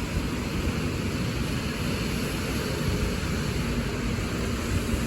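Steady road traffic noise: a low engine rumble under a continuous hiss.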